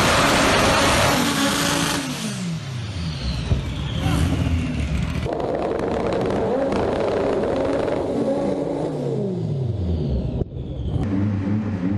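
Turbocharged 16-valve four-cylinder engine of a VW Gol GTI drag car, revved hard and let fall several times, the revs sliding down after each blip, then settling into a steady idle near the end.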